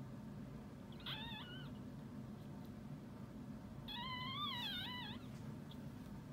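Two high, wavering cries from a miniature schnauzer: a short one about a second in and a longer one near the middle, the pitch bending up and down.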